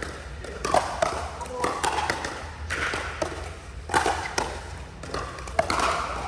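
Pickleball paddles striking the ball in a rally, several sharp pops a second or more apart, with people's voices in the background.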